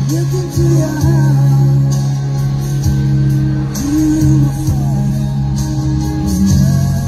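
A song playing: a singing voice over guitar accompaniment.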